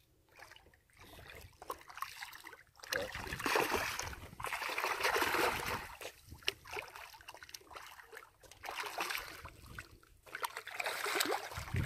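A hooked catfish thrashing and splashing at the water's surface as it is reeled in to the shoreline rocks, in surges of splashing, the biggest about three to six seconds in and again near the end.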